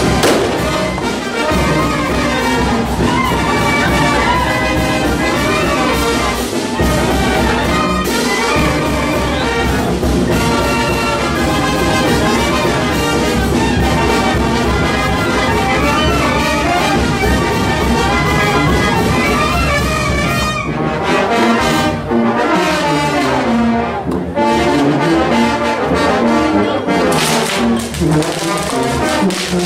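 Brass band music played loudly and without a break, led by trombones and trumpets.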